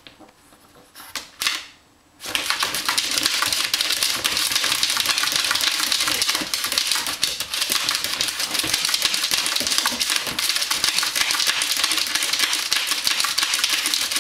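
French bulldog puppy's claws scratching and scrabbling fast at the plastic floor of a pet carrier and a towel, a dense rapid clatter of clicks and scrapes that starts about two seconds in and goes on without a break. The puppy is digging in a frenzy.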